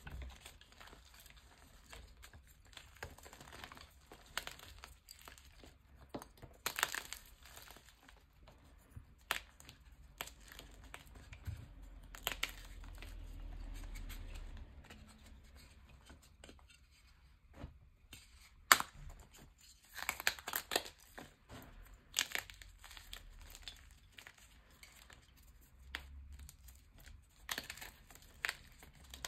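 Pieces of re-formed gym chalk crushed and crumbled between fingers in loose chalk powder: irregular dry crunches and crackles. The sharpest snaps come about seven seconds in and again around nineteen to twenty-one seconds in.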